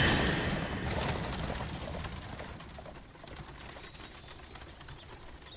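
A coach rushing past and rumbling away into the distance, fading over about three seconds. Faint bird chirps follow near the end.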